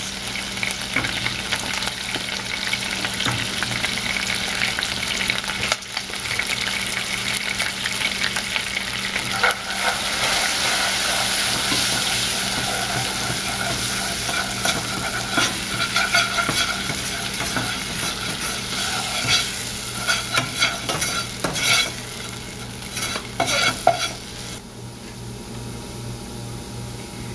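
A butter and quinoa-flour roux sizzling in a saucepan while a spoon stirs it, scraping around the pan bottom in repeated strokes. The stirring stops about three seconds before the end, leaving a quieter sizzle.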